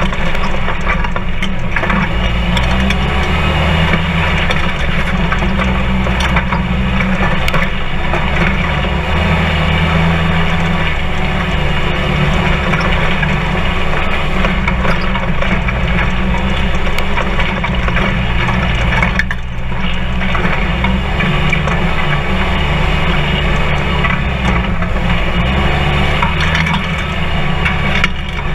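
Polaris RZR 4 side-by-side running along a dirt trail, heard from inside the open cab: a steady engine drone with shifting revs under a constant rattle and crunch of the chassis and tyres over rough ground. The engine eases off briefly about two-thirds of the way through.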